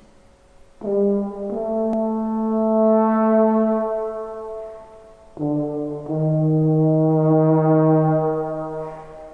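A brass instrument playing a slow hymn melody: two long phrases of sustained notes, the first starting about a second in and the second after a short breath near the middle, each opening on a short note that steps up into a long held tone.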